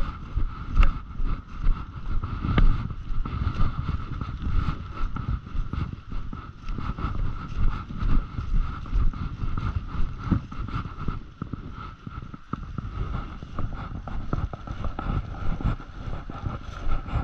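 Footsteps hurrying through a deep layer of dry fallen beech leaves, crunching and rustling at walking pace, with wind buffeting the microphone. A thin steady tone runs underneath.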